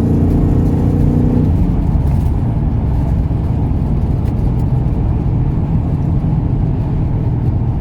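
Ford AU Falcon XR8's V8 heard from inside the cabin while driving: a steady low engine and road rumble. A higher engine tone fades out about a second and a half in.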